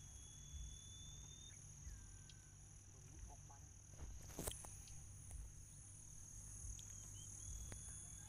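Faint, steady high-pitched insect trilling, with a couple of long, level whistle-like bird calls near the start and end and a single sharp knock about halfway through.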